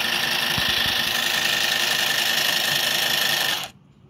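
Mini electric sewing machine stitching fabric, its small motor and needle running at a steady speed after being switched on with its on/off button rather than the foot pedal. It stops suddenly near the end.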